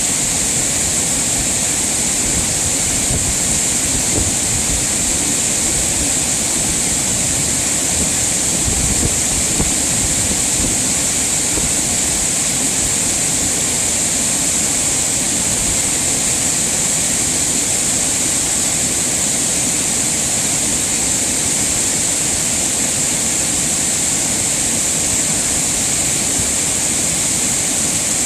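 Mountain stream water rushing steadily over rocks, an unbroken noise with a strong high-pitched hiss on top.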